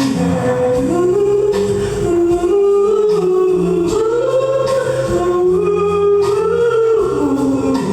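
Music: a singer holding long notes that step up and down over an instrumental backing.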